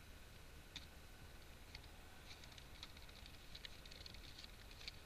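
Faint clicking of computer keyboard keys being typed: single keystrokes about one and two seconds in, then a quicker run of keystrokes through the second half, over a faint low hum.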